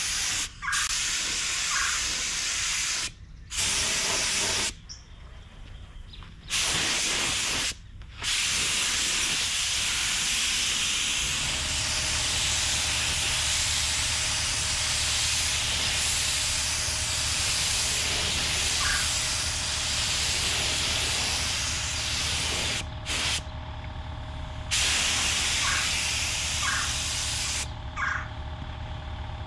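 Gravity-feed paint spray gun hissing in long passes as primer is sprayed, with the trigger let go for short pauses several times. About a third of the way in, a steady low hum starts and runs on under the spraying and through the pauses: the air compressor feeding the gun running.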